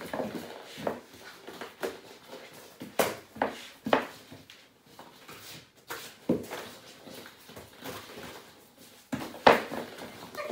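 Hollow plastic ball-pit balls clattering and knocking together as hands rummage through a pile of them on the floor, with irregular sharper knocks, the loudest about three to four seconds in and again near the end.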